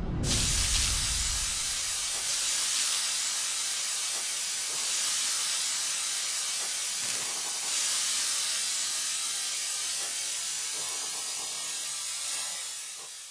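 Sci-fi sound effect: a loud, steady hiss like venting steam. It begins suddenly over a low rumble that dies away in the first second or two, and it fades out near the end.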